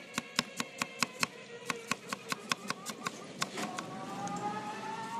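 Knife chopping cucumber on a wooden cutting board in quick even strokes, about five a second with a brief break partway, stopping a little over halfway through. After that a steady tone rises slightly in pitch.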